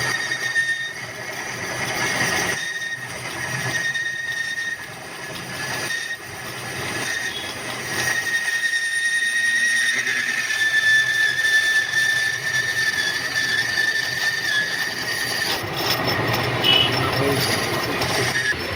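A lathe's cutting tool boring and turning a steel shock-absorber pipe, giving a steady high-pitched ring over the machine's running noise.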